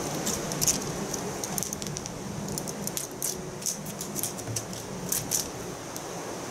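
Colourful cat wand toy rattling and clicking in short, irregular bursts as it bounces on a wooden bench and a ginger cat pounces on it and bites it, over steady background noise.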